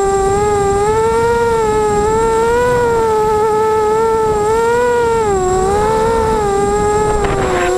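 Racing quadcopter's four EMAX 2280KV brushless motors on 5040 props whining, the pitch rising and falling as the throttle changes through hard turns. A short rush of noise near the end.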